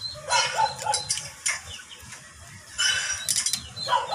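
Small metal clicks and clinks from carburetor parts and tools being handled during reassembly, with animal calls in the background.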